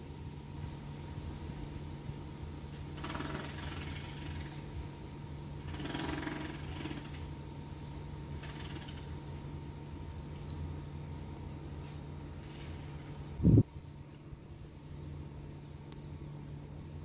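Outdoor ambience: small birds chirping now and then over a steady low hum, with a rush of noise swelling twice. A single sudden thump about two-thirds of the way through is the loudest sound.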